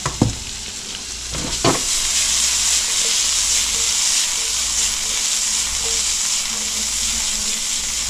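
Chunks of pompano sizzling as they brown in a nonstick frying pan while the pan is shaken to toss them. Two sharp knocks come in the first two seconds, and after the second the sizzle gets louder and stays steady.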